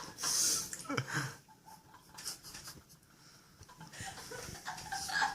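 A breathy, wheezy laugh at the start, then a quiet stretch, then faint voice sounds near the end.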